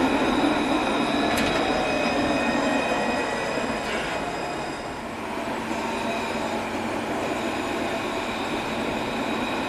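Alstom Citadis street tram running past on its rails, with steady high whining tones over a rumble. A lower tone falls in pitch over the first few seconds as the tram moves off. After a short dip about five seconds in, another tram's running sound takes over.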